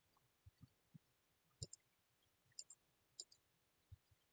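Faint computer mouse clicks over near silence: a few scattered single clicks, some in quick pairs about a second and a half in and again past two and a half seconds.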